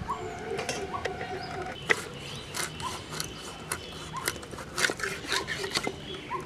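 A large raw fish being cut into steaks on a boti, the fixed curved blade: a run of sharp clicks, crunches and scrapes as the blade goes through scales, skin and bone, thickest in the second half. A short rising bird chirp repeats about once a second.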